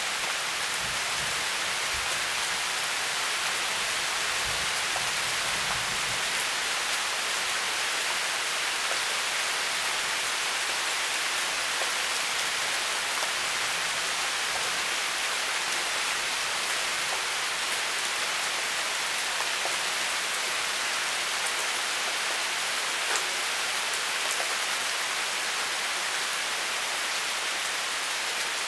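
Steady rain falling: an even hiss with scattered drop ticks. A low rumble underneath fades out about six seconds in.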